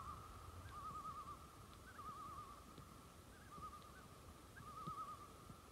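Faint common loon tremolo calls: about five short wavering, quavering phrases, one every second or so.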